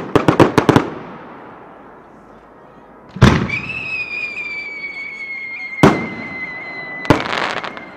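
Aerial fireworks shot at close range: a quick run of sharp crackling pops at the start, then a loud bang followed by a long whistle that sinks slightly in pitch. A single sharp burst bang comes about six seconds in, and another bang with a short crackle near the end.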